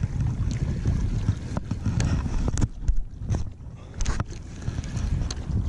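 Wind rumbling on the microphone while a spinning reel is cranked to play in a hooked carp, with scattered sharp clicks and knocks from the reel and rod being handled.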